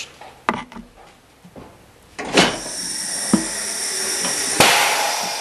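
Tire bead being levered off an aluminum rim with a tire iron on a manual tire changer: a few knocks, then rubber scraping and squeaking against the metal, with a sharp knock midway and a louder rush of scraping near the end.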